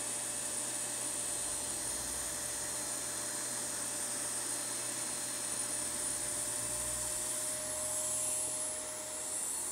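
Electric 110-volt inflation pump running steadily in deflate mode, with a steady whine over its air noise, sucking the air out of an inflatable paddle board.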